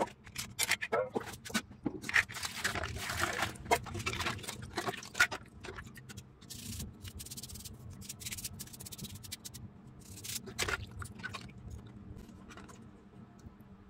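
Short scraping and rubbing strokes of hand work on a small mobile phone, busy for about the first six seconds and then sparser and fainter.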